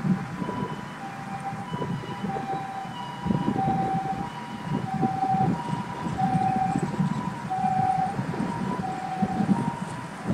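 Two-tone emergency vehicle siren sounding the alternating high-low 'pee-poh' pattern of a Japanese ambulance, each note about half a second, over wind buffeting the microphone and low traffic rumble.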